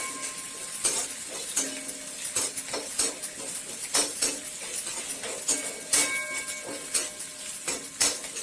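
A metal spoon stirring in a kadai, scraping and knocking against the pan in irregular strokes about twice a second, as small onions, garlic and spices sauté and sizzle in sesame oil.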